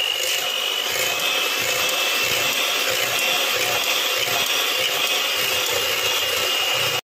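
Electric hand mixer running at a constant speed, its twin beaters whipping cream in a stainless-steel bowl: a steady high motor whine over an even whirring. It stops abruptly at the end.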